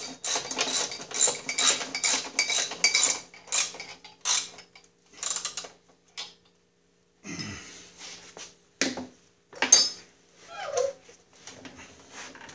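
Ratchet wrench clicking in a quick, even run of strokes as a fastener on a Snapper rider's chain case is tightened, stopping about three seconds in. A few scattered metallic clinks and knocks of tools on metal follow.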